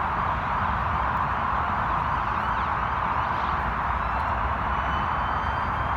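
Steady roar of motorway traffic passing at speed, a continuous rushing noise with a low rumble under it.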